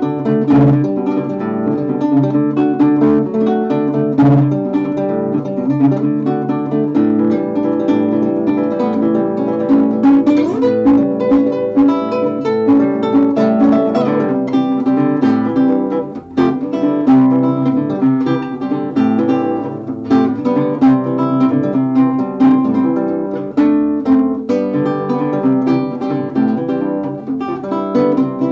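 Hofner 3/4 nylon-string classical guitar played solo, plucked notes and chords running continuously, with a brief drop in loudness about halfway through.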